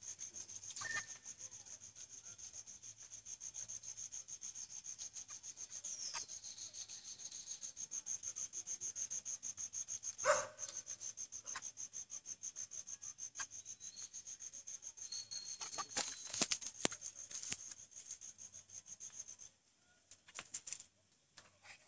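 A steady, rapidly pulsing high chirping of night insects, which stops abruptly near the end. Over it come rubbing and a few sharp clicks from hands working a small catfish off the hook on grassy ground.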